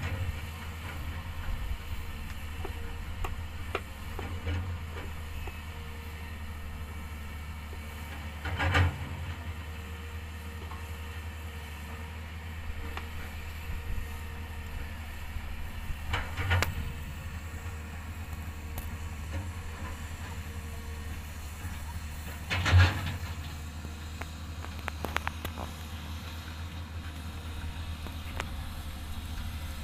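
Diesel truck engine running steadily at a low hum, heard from inside the cab, with three short louder noises spread through.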